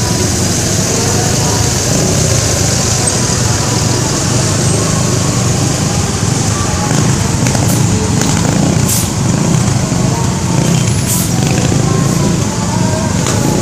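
Steady low rumble of a running bus engine and road noise, with a few short sharp sounds in the second half.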